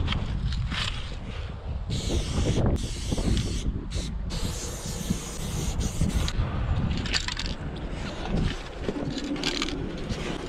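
Aerosol spray-paint cans hissing in bursts of varying length, stopping briefly between strokes, over a low rumble.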